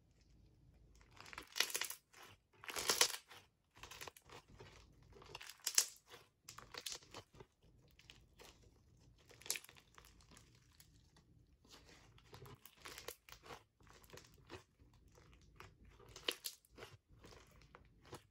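Thick white foam-bead slime being stretched, squeezed and pressed by hand, giving irregular crunches and crackles as the beads pop and the slime folds. The loudest crunches come in the first few seconds.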